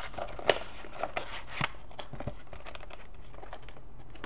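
Paperboard product box being opened by hand: the inner tray scrapes as it slides out of its cardboard sleeve, with a sharp tap about half a second in and rustling strokes for the first second and a half, then only light handling ticks.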